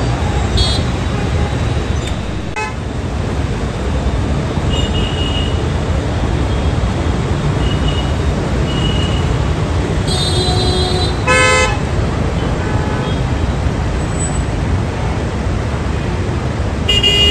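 Road traffic rumbling steadily, with vehicle horns honking in short blasts several times; the loudest blasts come about ten to eleven and a half seconds in.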